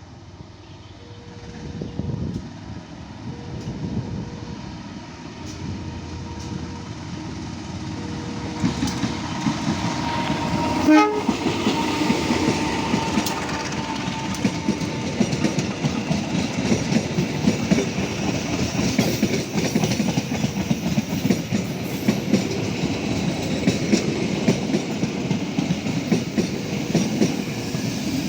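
A train approaches and passes close, its wheels clattering over the rail joints, louder and louder through the first third. About a third of the way in the locomotive gives a long horn blast, the S35 warning signal. Early on a level-crossing warning tone repeats on and off about once a second beneath it.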